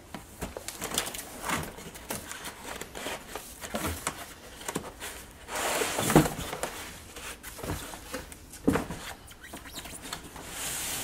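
Cardboard packaging being handled: a molded pulp tray of cameras is slid out of a cardboard box and set down, and the box and its inserts are moved. There are scraping rustles about six seconds in and again near the end, and light knocks in between.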